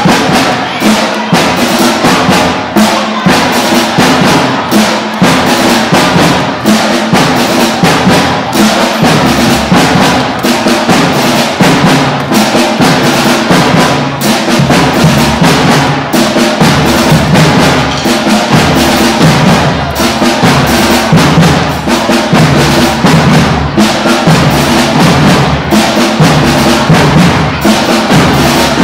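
A sixth-grade school band playing: held, pitched ensemble notes that change in steps over a steady drum beat, with deeper bass notes filling in partway through.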